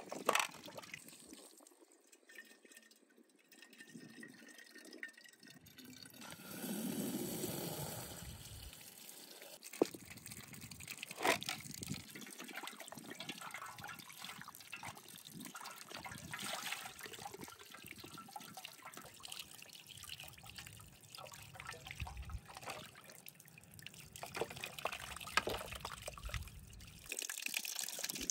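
Water trickling and splashing, with a few small knocks along the way.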